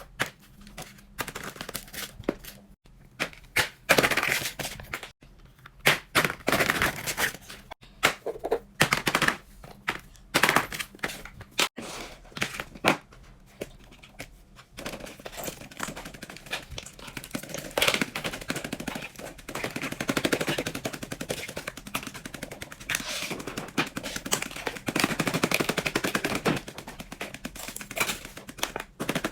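Fidget toys being handled: irregular sharp clicks and knocks through the first half, then a denser crackling, rustling clatter from about halfway.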